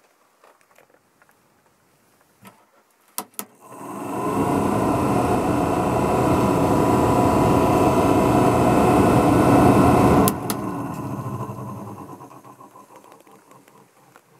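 Newly installed Ventline RV bathroom exhaust fan switched on with a couple of clicks, spinning up and running with a steady whir, then switched off with a click about ten seconds in and coasting down to a stop.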